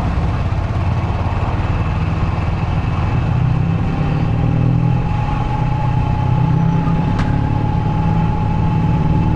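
Yamaha YBR125's single-cylinder four-stroke engine running steadily, with a thin steady whine coming in about halfway through.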